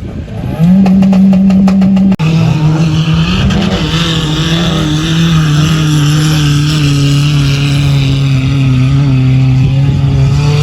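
Off-road vehicle engine held at high, fairly steady revs under load, a sustained drone that shifts pitch a little. The note drops lower after a brief cutout about two seconds in and settles slightly lower again partway through.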